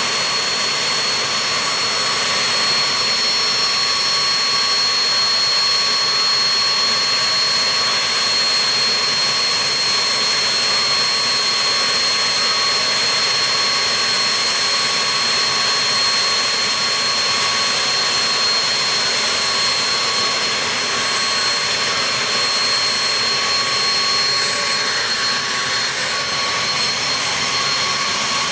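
Jet engine of a drag-racing funny car running steadily, a loud, even turbine rush with a high whine held over it.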